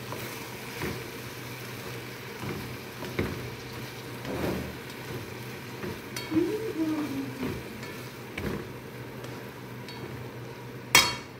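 Spatula stirring and scraping minced meat and vegetable filling around a nonstick frying pan, over a steady sizzle, with scattered soft knocks and one sharp, loud knock against the pan near the end.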